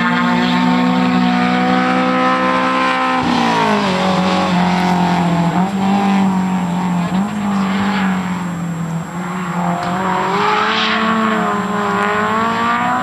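Honda S2000's four-cylinder engine running at high revs through a dual titanium exhaust. The note is held steady, drops sharply about three seconds in, then rises and falls with the throttle.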